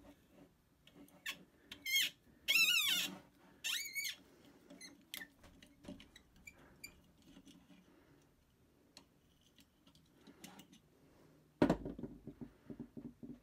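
Brass fitting on a pressure washer wand's steel lance squeaking as it is twisted and unscrewed by hand: three short, wavering high squeals within the first four seconds, then fainter scrapes and ticks. Near the end comes a sudden knock followed by quick rattling.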